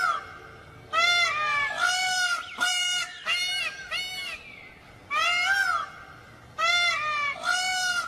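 Peacock calling: a run of loud, pitched honking calls, about one every half second, a short pause just after the middle, then more calls.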